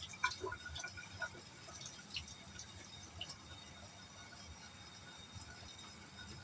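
Faint dripping and small splashes and clicks of ingredients being rinsed by hand in water, busiest in the first couple of seconds, over a low steady hiss.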